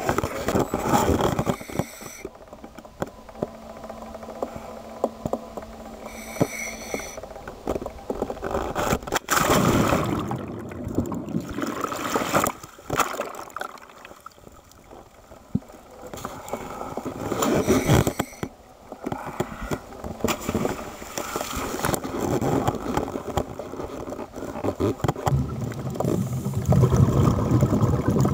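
Camera handling noise with water sloshing and splashing as the camera goes into the sea, then muffled underwater noise.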